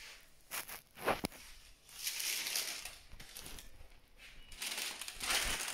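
Sheet of parchment paper rustling and crinkling in two bouts as it is handled and laid flat over a T-shirt, after a few light taps in the first second or so.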